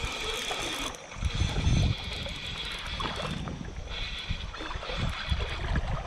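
Shimano 1000-size spinning reel cranked in spells, with a fine high whir, while reeling in a hooked trout, over the steady rush of creek water. A loud low rumble about a second in.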